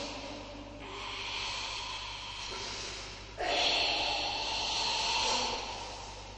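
A karateka's forceful, drawn-out kata breathing (ibuki): long hissing exhalations through the throat. A softer breath comes first, then a louder one starts abruptly about three and a half seconds in and fades out.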